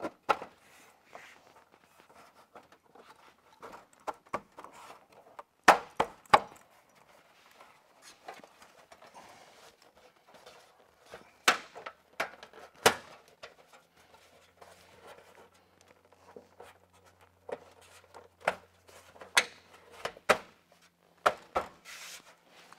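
Metal window trim being pushed and fitted into place against steel siding by hand: scattered sharp knocks and clicks, some in quick pairs.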